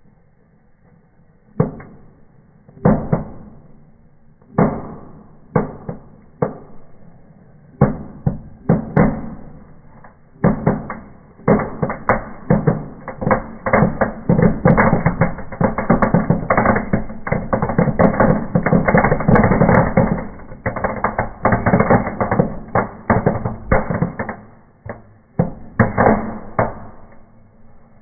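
Indoor firecrackers bursting in a fireplace: single sharp bangs a second or so apart at first, then a dense, rapid crackling run of many cracks for about ten seconds, thinning back to scattered single bangs near the end.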